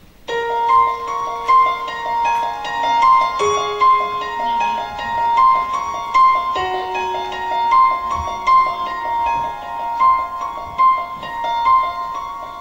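Piano music starts abruptly just after the start: quick high repeated notes over long lower notes that step down, swelling about every three-quarters of a second and easing off near the end.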